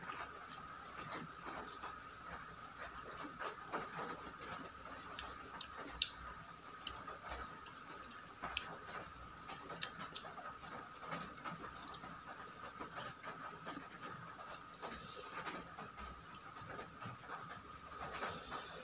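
Close-miked eating sounds: irregular chewing, wet mouth clicks and lip smacks from someone eating rice with vegetable dishes, with a couple of brief hissy slurps or breaths. A steady faint high tone runs underneath.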